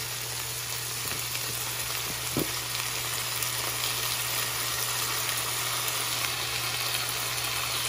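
Diced onion, garlic and tomato sizzling steadily in hot oil in a frying pan as canned corned beef is added, with a single light knock about two and a half seconds in.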